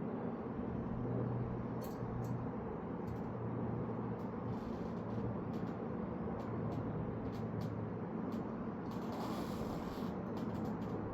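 Scattered light clicks and taps of hand work on bicycle parts over a steady background hum, with a short hiss about nine seconds in.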